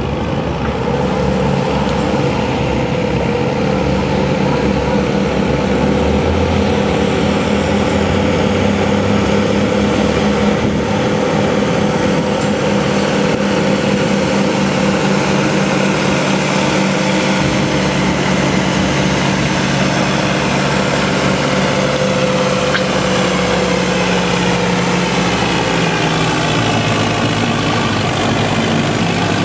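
Turbocharged Farmall 400 tractor engine running hard under load as it pulls a weight-transfer sled, holding a steady pitch that sags slightly near the end.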